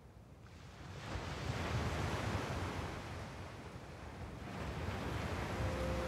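Surging ocean surf opening an electronic show soundtrack: a wash of waves swells in about a second in, eases off, then swells again. Near the end a steady held synth tone comes in under it.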